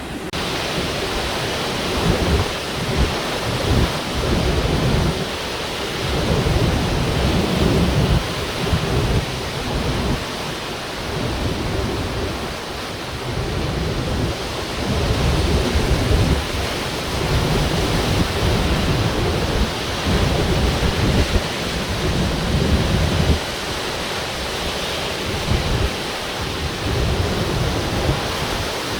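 Typhoon-force wind buffeting the microphone in irregular low rumbling gusts over the steady rush of heavy surf.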